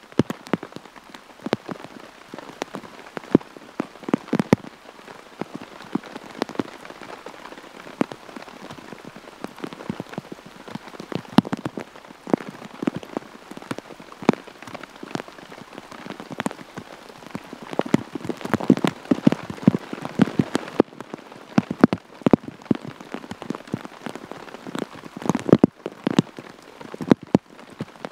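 Heavy rain falling steadily, with many large drops striking a surface close by in irregular, sharp taps over the constant hiss.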